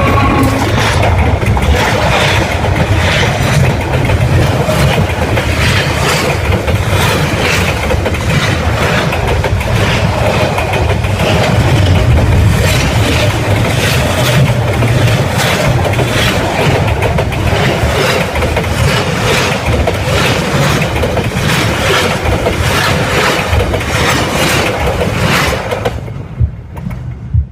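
A train passing very close overhead, its steel wheels clattering in a rapid run of clacks over the rails above a heavy, loud rumble. The noise drops away abruptly near the end as the train clears.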